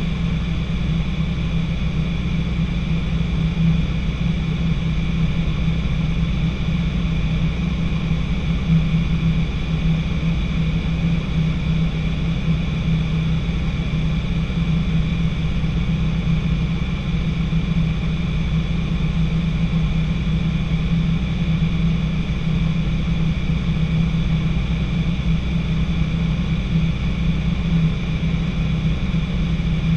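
Light training aircraft's piston engine and propeller droning steadily, heard inside the cockpit. It is an even, unchanging drone with a strong low hum and faint steady whines higher up.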